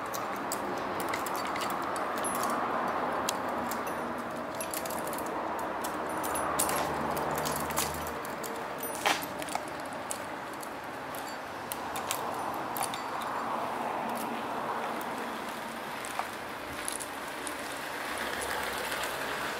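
Metal clicking and rattling from the saw chain and a small tool as the chain is handled and fitted on a Shindaiwa chainsaw's bar with the engine off, many separate clinks over a steady background hiss.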